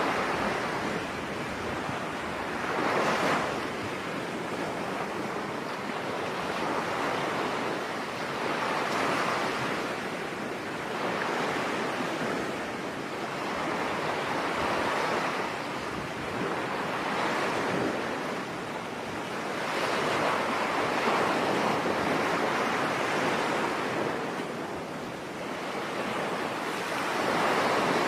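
Ocean waves breaking on a beach, the surf swelling and washing back every few seconds in an unbroken rhythm.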